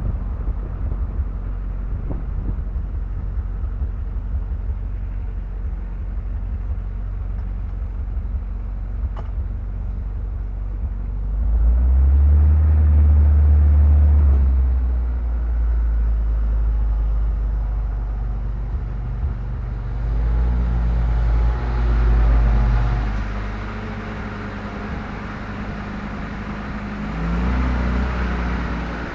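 MGB roadster's 1.8-litre four-cylinder engine running at low speed with wind fluttering on the microphone for the first ten seconds or so. The engine then grows louder and deeper for a couple of seconds around the middle, and its note rises and falls again as the car is manoeuvred and brought to a stop.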